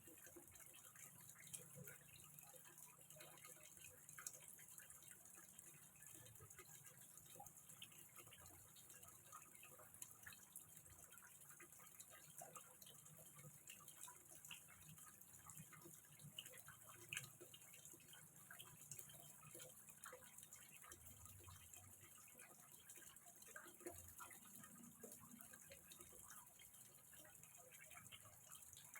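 Faint water trickling and dripping into a small fish pond: many scattered small drips and splashes over a steady hiss.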